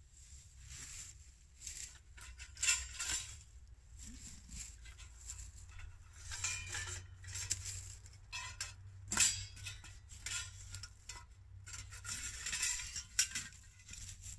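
Metal parts of a twig stove kit and its pot clinking and rattling against each other as they are unpacked and handled, in irregular clinks with a couple of louder knocks, one about three seconds in and one past halfway.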